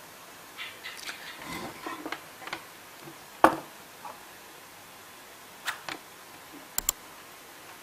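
Scattered clicks and light rattles of cables and a mains plug being handled on a workbench, with one sharp, loud click about three and a half seconds in and a quick double click near the end.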